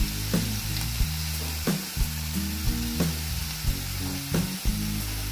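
Chicken pieces, gizzards and liver sizzling in a hot pan, a fine steady hiss. Over it runs louder background music of low sustained notes with a plucked beat.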